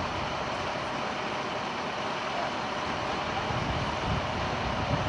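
Steady running noise of a large vehicle engine, with its low rumble growing a little stronger in the second half.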